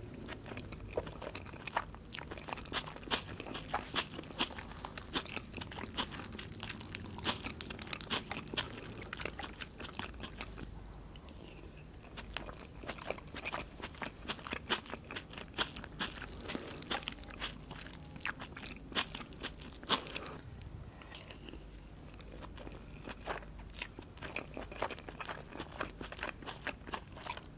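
Close-miked chewing of a mouthful of gyudon, beef and rice: many small irregular mouth clicks and crunchy bites, with brief lulls between mouthfuls.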